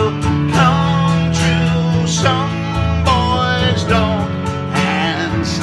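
Acoustic guitar strummed in a steady rhythm, about two strums a second, with a singing voice holding wavering notes over the chords.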